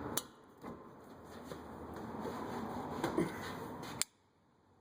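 A few sharp metallic clicks and clinks of wrenches being handled and fitted onto the brake caliper bracket's 17mm bolts, over faint rustling handling noise, ending in a sharper click after which the sound drops away.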